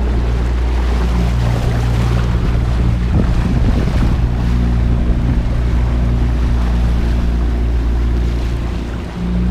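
A small motorboat's engine running steadily under way, with wind buffeting the microphone and water rushing past the hull in rough seas. The level dips briefly near the end.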